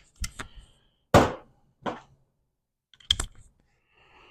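A handful of separate knocks and clicks of tools being handled on the transmission, the loudest about a second in.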